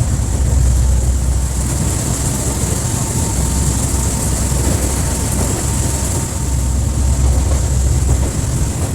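Open-air rail cart running steadily along the track: a continuous low rumble with a thin, steady high whine over it.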